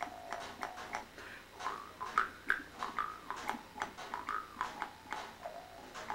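Amis bamboo-framed mouth harp being played: a quick string of twangy plucks, about three or four a second at an uneven rhythm, the pitch of each twang shifting up and down as the mouth shapes a tune.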